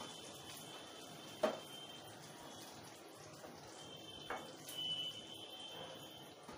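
Wooden spatula stirring thick chicken gravy in a nonstick kadai, knocking against the pan twice, about a second and a half in and again past four seconds, over a steady faint hiss.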